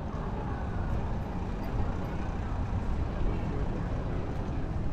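Steady outdoor city street ambience, mostly a low rumble of traffic.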